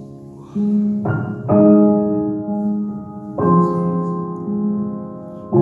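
Slow piano music: sustained chords struck a few times and left to ring out and fade.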